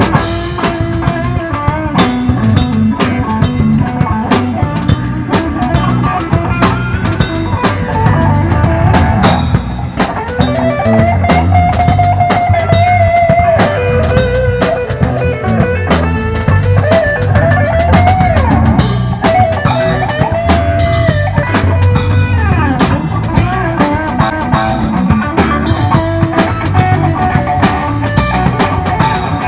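Live rock band playing an instrumental passage: electric guitar over a drum kit keeping a steady beat, with no singing. Through the middle, held lead notes bend up and down.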